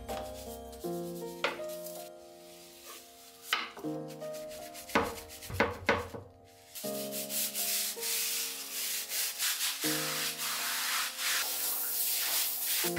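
A stiff-bristled hand scrub brush scrubbing a ceramic sink and tiles: separate scraping strokes in the first half, then a denser continuous scrubbing hiss from about seven seconds in. Soft background music with sustained notes plays underneath.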